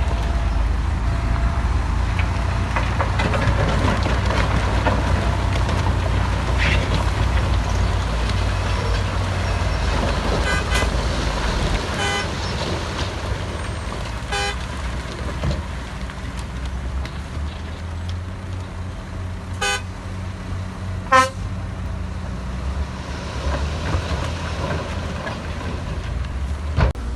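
Heavy earthmoving machinery engine running steadily with a low drone that eases off about halfway through. Several short, sharp horn-like toots sound in the second half, the loudest near the end.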